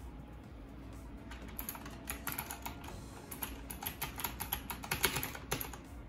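Typing on a typewriter-style mechanical keyboard with round keycaps: quick, irregular key clicks that start about a second in and run close together, several a second.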